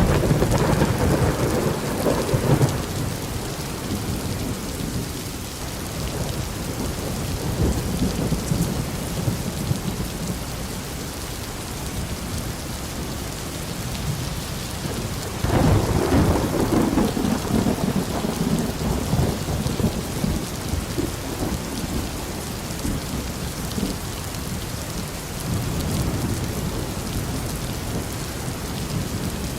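Steady heavy rain with thunder: one rumble at the start dying away over a few seconds, and a second peal breaking in suddenly about halfway through and rolling off slowly.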